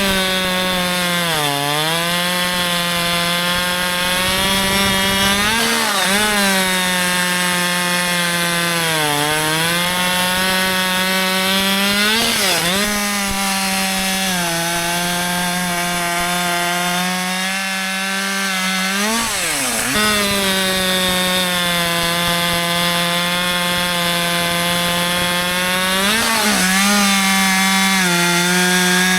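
Husqvarna 564 XP two-stroke chainsaw, a 62cc saw, cutting wood at full throttle. The high, steady engine note dips under load several times and recovers, dropping deepest about two-thirds of the way through.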